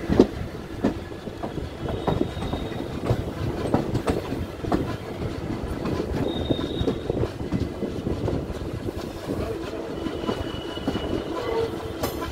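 Passenger train coach running along the track, heard from its open door: wheels clattering over rail joints in an uneven clickety-clack over a steady rumble, with three brief high squeals from the wheels.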